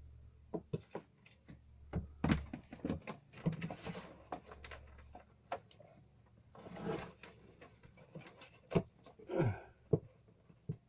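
Scattered knocks and clicks with bursts of rustling: hands handling a battery cable and its fittings.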